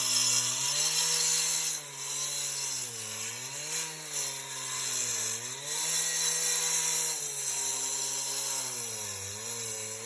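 A motor-driven machine running steadily over a loud hiss, its pitch dipping briefly several times as it takes load.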